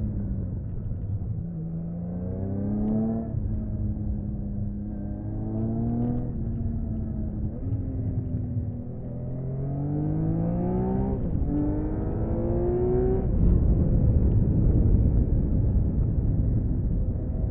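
1979 Honda CBX 1000's air-cooled inline-six engine on its stock exhaust, accelerating hard: the pitch climbs and drops back several times, over a heavy rumble of wind on the microphone.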